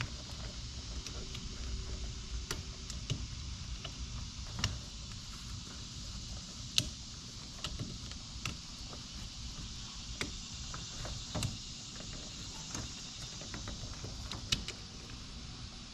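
Scattered sharp clicks and taps from hand work on the ignition switch's wiring connectors and housing, coming at irregular intervals over a steady low background rumble.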